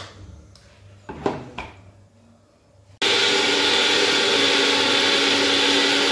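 A few knocks, then an electric mixer grinder starts about halfway in and runs steadily with an even whir and hum, grinding soaked mustard seeds and green chillies into a paste.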